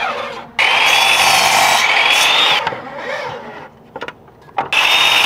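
Miter saw cutting through a 2x4: the motor whine rises in pitch as the blade runs through the wood for about two seconds, then winds down. After a short pause with a couple of clicks, the saw runs again near the end.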